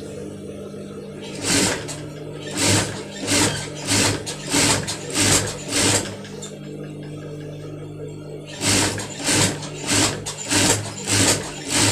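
Sewing machine stitching braided sfifa trim onto a djellaba hood in short, evenly spaced bursts of about one every two-thirds of a second, over a steady hum. There are two runs of six or seven bursts, with a pause of about two seconds between them.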